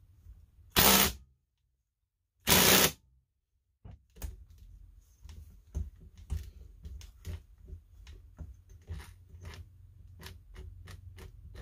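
Two short bursts of a DeWalt cordless impact tool hammering on the flywheel nut of a Stihl MS170 chainsaw, the nut not coming loose. Then a run of light, irregular clicks and knocks as tools and parts are handled on the bench.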